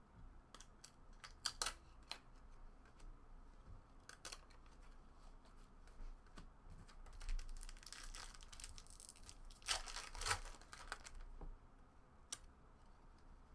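Old trading cards being handled at close range: scattered light clicks and flicks, with a denser stretch of crackling rubbing about eight to eleven seconds in as stuck cards are worked apart.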